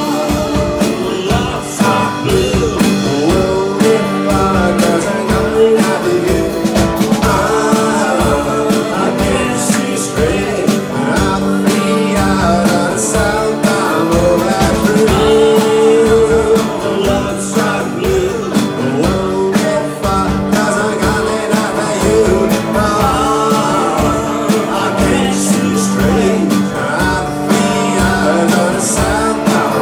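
Live rock band playing: electric guitar, strummed acoustic guitar and drum kit together.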